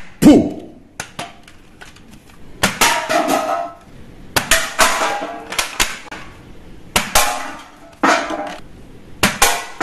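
Toy guns firing: a series of short shot sounds and sharp clicks, coming in bursts about every one to two seconds, some with a buzzy electronic tone.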